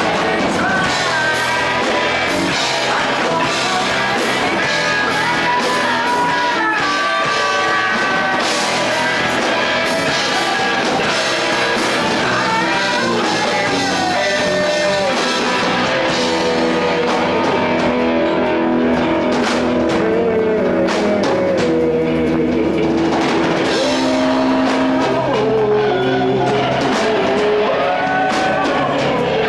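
Live rock band playing a song loudly and steadily: guitars and a drum kit, with a melody line that bends and slides above them.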